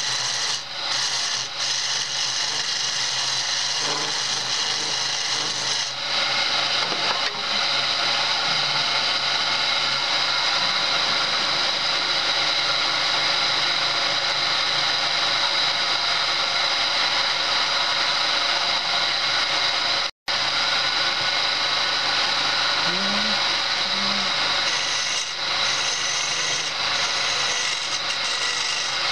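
Homemade belt-driven wood lathe running while a turning chisel cuts a spinning wooden spindle: a steady scraping hiss of the cut over the even hum of the machine. The sound cuts out for an instant about two-thirds of the way through.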